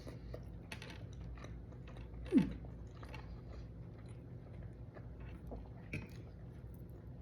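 A person eating close to the microphone: faint chewing and biting with small crunches, and a brief falling tone about two and a half seconds in.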